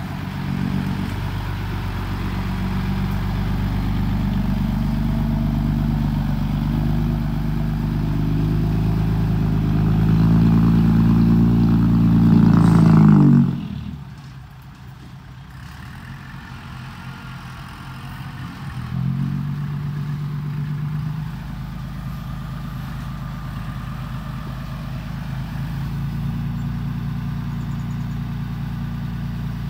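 Hino dump truck's J07C six-cylinder diesel engine pulling under load, its pitch rising until it drops off sharply about 13 seconds in. It picks up again about 19 seconds in and runs steadily at a higher speed.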